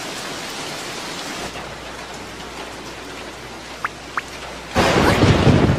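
Steady rain falling, as a cartoon soundtrack effect, with two brief high blips in the middle. Near the end comes a sudden loud burst, heavy in the low end.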